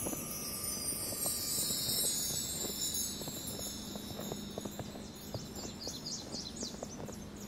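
Shimmering chimes, like wind chimes, ringing and fading over the first few seconds. A quick run of high bird chirps comes about six seconds in, over soft footsteps in snow.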